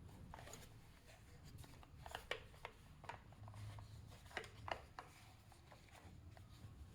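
Small toy cars being handled, with faint scattered clicks and light taps, most of them between about two and five seconds in.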